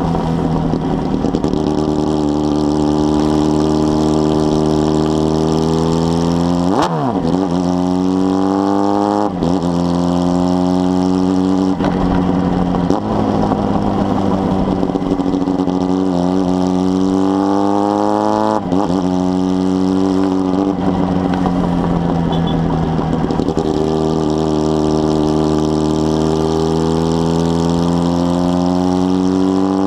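Carbureted 2005 Honda Hornet's inline-four engine, through a 4-into-1 exhaust, pulling through the gears while riding. Its pitch climbs over a few seconds and then drops sharply at each gear change, several times.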